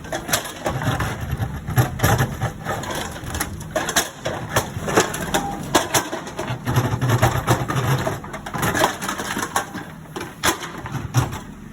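JCB excavator digging: irregular crunching and knocking of soil and stones in the bucket, over the low hum of the diesel engine that comes and goes.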